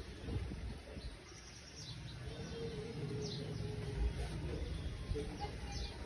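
Birds chirping outdoors: short, high, falling chirps every second or so, with a few higher trills near the end, over a low background rumble.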